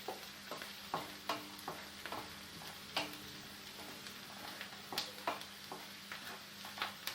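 Onions sautéing in oil and butter in a pan with a low sizzle, being cooked down until they brown. A spoon stirs them, knocking and scraping against the pan at irregular moments, over a faint steady hum.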